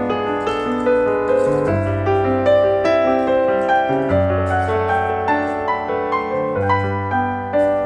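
Background piano music: a gentle melody over sustained low bass notes that change every two seconds or so.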